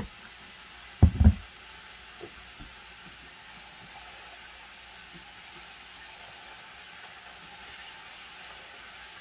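Chicken deep-frying in hot oil, a steady sizzle, with two loud low thumps close together about a second in.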